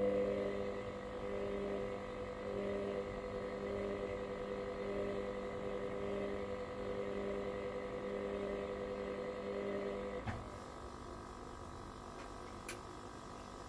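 Hoover washer-dryer running with a steady electric hum that cuts off with a click about ten seconds in; a fainter hum carries on, with another small click near the end.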